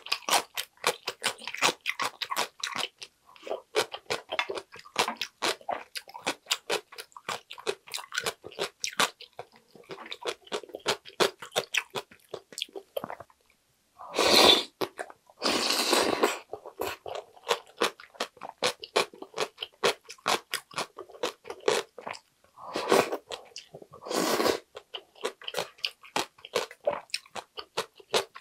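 Close-up crunchy chewing of cucumber kimchi, many quick crisp crunches. About halfway through comes a pair of loud slurps of ramyun broth from a ladle, with more chewing after and two more slurps near the end.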